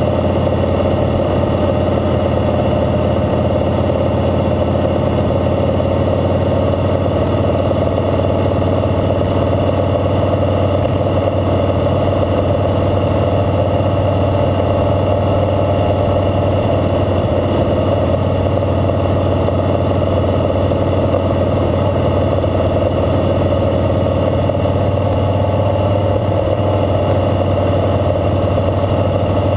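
Harley-Davidson Fatboy Lo's air-cooled V-twin running steadily as the motorcycle rolls along at parade pace, a constant low drone with no change in revs.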